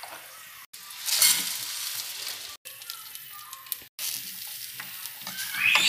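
Raw rice sizzling as it is toasted in hot fat with garlic in an aluminium pot, stirred and scraped with a wooden spoon. The sound cuts out briefly three times.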